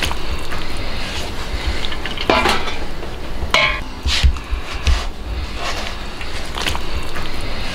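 Metal tongs and a steel ladle clanking against a wok while pig intestines are lifted out of the braising liquid: five or so sharp clinks, one ringing on briefly about three and a half seconds in, over a steady low rumble.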